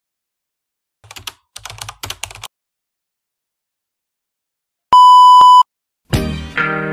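Keyboard typing sound effect in four short clusters of clicks, then a loud electronic beep held for just under a second, about five seconds in. Guitar music starts near the end.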